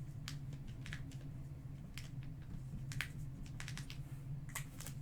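Trading cards being handled and flipped through by hand, giving a scatter of short, soft clicks and flicks at irregular intervals over a steady low hum.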